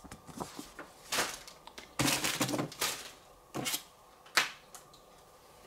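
Packaging being handled while unboxing an accessory: a few separate bursts of rustling and light clattering, the longest about two seconds in.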